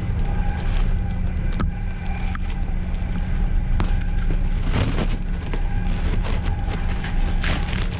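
Passenger train carriage running on the rails, heard from inside the last car: a steady low rumble with scattered clicks and knocks.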